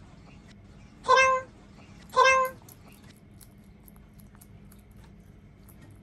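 A cat meowing twice, two short meows about a second apart, followed by a few faint clicks.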